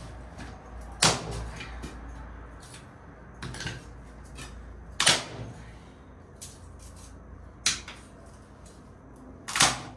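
Dead branches being split for firewood: about five sharp, loud chopping strikes a couple of seconds apart, with fainter knocks between, on wood that is hard to split.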